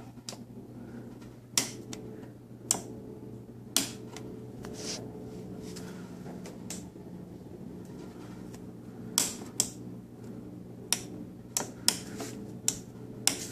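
Sharp clicks of toggle switches on a moped's light panel being flipped and handled, about ten in all and unevenly spaced, over a steady low hum.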